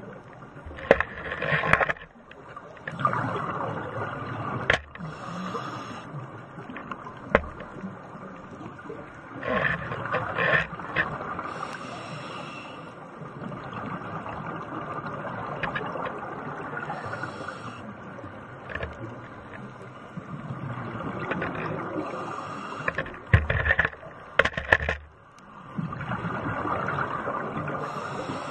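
Scuba diver breathing through a regulator underwater: a hiss on each inhale and a rush of exhaled bubbles, repeating every four seconds or so, with sharp clicks here and there.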